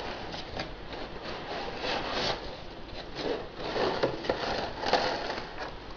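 Cardboard packaging of a toy train set box scraping and rustling as it is slid open and handled, with irregular rubbing strokes and small clicks.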